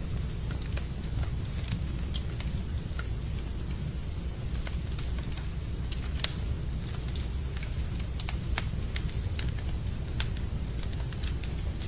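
Wood fire burning in a fireplace: a steady low rumble of flames with irregular sharp crackles and pops, one louder pop about halfway through.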